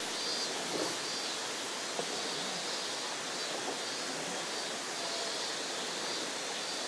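Steady rushing of flowing water, an even noise with no music or voice.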